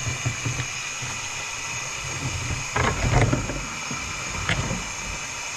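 Steady mechanical hum, with a short cluster of knocks about three seconds in and one more knock about a second and a half later.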